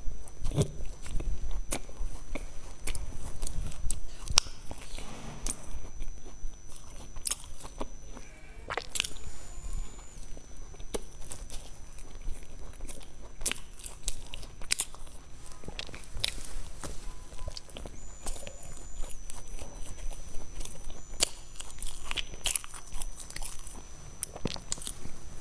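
Close-miked eating of a pork-floss-coated sponge cake (rousong cake): biting and chewing with many irregular sharp clicks and smacks. A faint steady high whine runs underneath.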